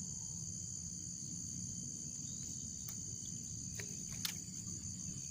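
Steady high-pitched insect chorus over a low outdoor rumble, with a few faint clicks between about two and a half and four seconds in.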